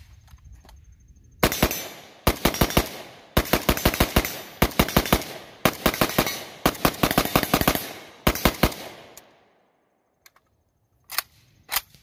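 Bulgarian AK-74 rifle in 5.45x39mm firing a long run of shots in quick strings, several shots each, with short pauses between. About two seconds after the shooting stops there are two sharp metal clacks near the end.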